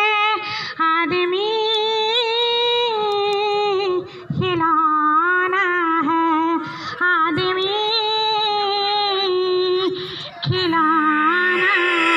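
A woman singing unaccompanied, with no instruments, in long held, ornamented notes. She pauses briefly for breath about four seconds in and again near the end.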